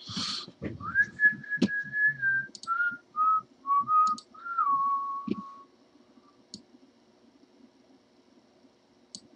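A person whistling a short tune. It opens on a held high note, then steps down through a few lower notes and fades out about halfway through. A few faint clicks come and go.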